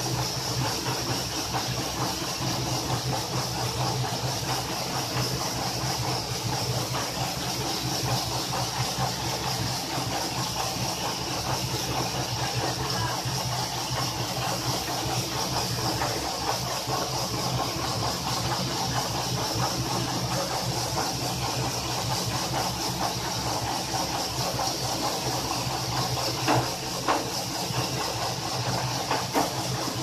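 Carrot roller washing machine running: a steady low motor hum with water hissing from the spray nozzles onto the carrots. Two brief knocks near the end.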